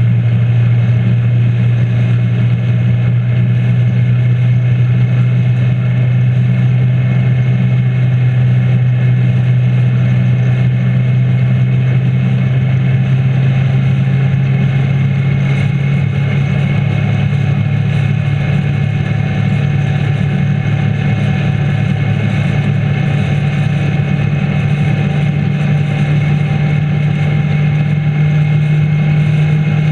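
Motorcycle engine running steadily at cruising speed, heard from the handlebars. Its pitch rises slowly over the second half as the bike gathers speed.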